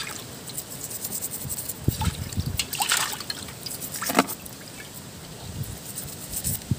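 A toothbrush scrubbing the shell of a live land crab held over a metal basin, its bristles scratching in quick irregular strokes while water drips and trickles back into the basin, with a few small splashes.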